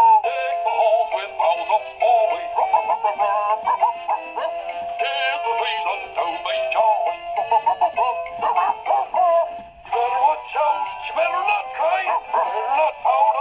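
A DanDee animatronic plush Christmas dog singing a Christmas song to its own backing music through its small built-in speaker, a thin sound with almost no bass. The music breaks off briefly about ten seconds in, then starts again.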